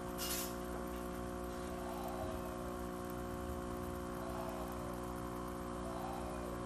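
Steady electrical hum made of several even, unchanging tones, with a brief hiss just after the start and a few faint short gliding sounds now and then.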